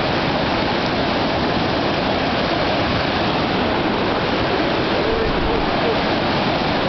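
River rapids rushing steadily, a loud, even roar of whitewater.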